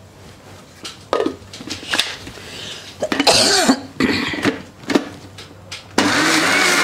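Knocks and scrapes of a steel jar being handled and set on an electric mixer-grinder. About six seconds in, the mixer-grinder switches on and runs steadily with a whine, grinding a wet green masala of onion, mint, coriander and green chillies into a paste.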